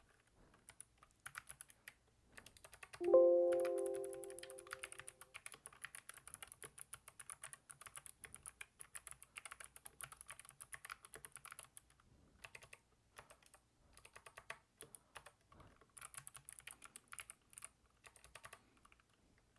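Typing on an ABKO Hacker K8200 V1 Crystal keyboard: quick runs of key clicks with short pauses, played as a sound test of how the keys feel. About three seconds in, a loud ringing tone sounds and fades out over about two seconds.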